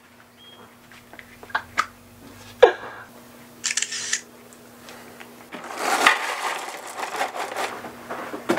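Household handling noises: scattered small clicks and knocks over a faint steady hum, a short hiss about four seconds in, then a few seconds of rustling with many small clicks.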